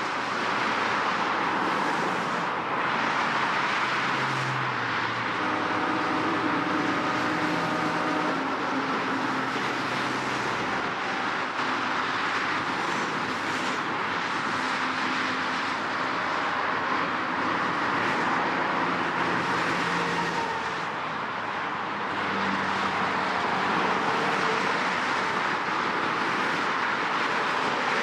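Heavy road traffic: a steady, dense wash of tyre and engine noise, with the hum of individual vehicle engines rising and fading within it.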